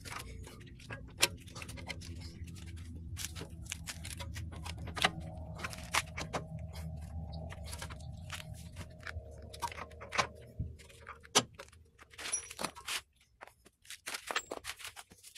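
Scattered metallic clicks, taps and rattles of a CV axle and hand tools being handled as the axle is fitted into the front wheel hub. A low steady hum runs underneath and stops about ten seconds in.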